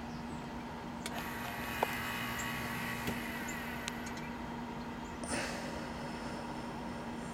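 Fast Eddy FE 1000 pellet grill running with a steady low hum from its fan. A few light clicks come in the first few seconds, and there is a brief rustle about five seconds in.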